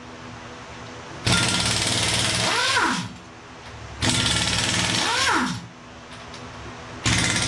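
Pneumatic impact wrench hammering in two bursts of nearly two seconds each, with a third starting near the end, as it breaks loose the cylinder head bolts on a Ford V8. Each burst ends in a falling whine as the tool spins down. Between the bursts the air compressor keeps up a steady, quieter hum.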